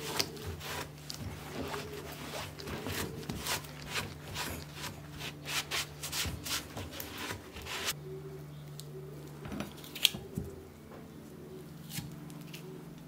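Hand sanding: repeated rubbing strokes, about two or three a second, that stop about two-thirds of the way through. A few light knocks follow, with one sharp click.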